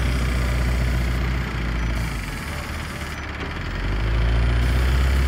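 Vehicle engine running steadily with a low hum, easing quieter from about a second and a half in and coming back up near the end.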